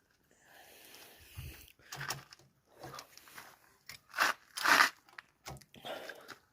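Irregular gritty scraping and crunching as a wrench is worked on a truck's wheel nuts, loudest in two bursts a little past the middle.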